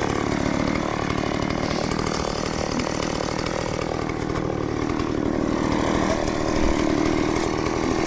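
Gasoline chainsaw running at high revs, its engine pitch sagging and recovering as the chain works through wood.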